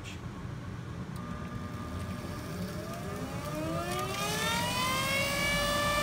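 Goodman gas furnace draft inducer motor starting up: a whine that rises steadily in pitch over about three seconds and settles into a steady whine near the end. The motor had seized and been freed by hand, and the owner guesses it is bad.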